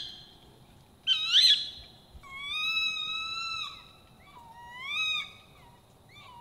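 Four high calls from an unidentified animal at night, which the campers take for a bird: a short wavering call, then a long level one, then two shorter calls that rise at the end.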